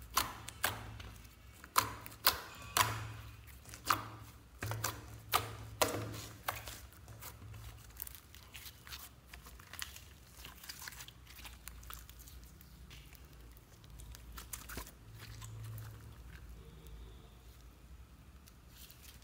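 Glitter slime pressed and poked with the fingers: a run of sharp, wet pops and clicks for the first eight seconds or so, then only fainter crackling.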